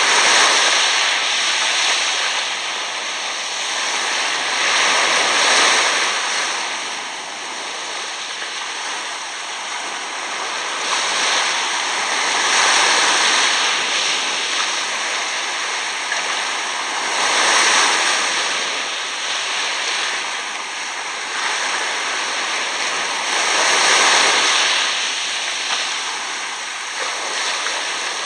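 Small waves washing up over coarse sand at the water's edge and draining back. The wash swells and fades about every five to six seconds.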